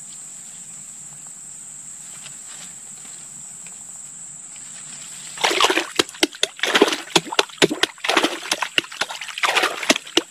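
Shallow creek water sloshing and splashing in quick, irregular bursts from about halfway on, as hands work a baited line into a submerged hole in the bank. A steady high insect drone sits under it throughout.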